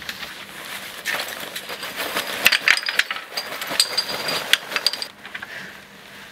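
A backpack being handled on a wooden table: rustling with many sharp clicks and light clinks, easing off about five seconds in.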